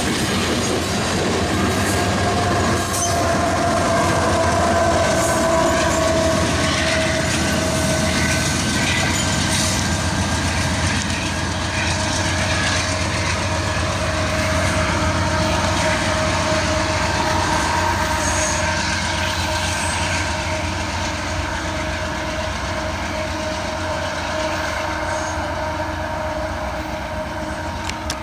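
Union Pacific freight train rolling past. Its wheels squeal steadily and click over the rail joints above the rumble of the diesel locomotives.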